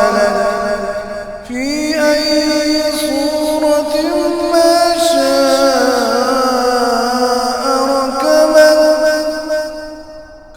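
Melodic Quran recitation by a solo voice, drawn out in long held notes that waver and glide in pitch. There is a short break about a second and a half in, and the voice fades toward the end.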